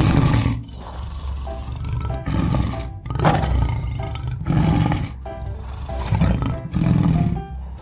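Leopard roaring: several loud, rough calls at uneven intervals, over background music.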